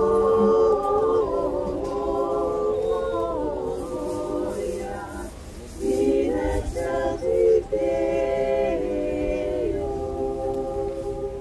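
A small group of women carollers singing a cappella in harmony, holding long notes, with a short break about halfway through.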